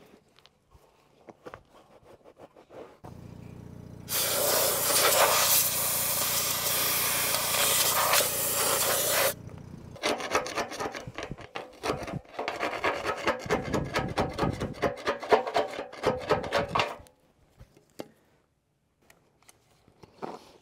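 Rust being cleaned off a steel truck frame. A power tool hums steadily for several seconds and is loud against the metal for about five of them. After it stops come irregular hand scraping strokes on the rusty frame, which end a few seconds before the close.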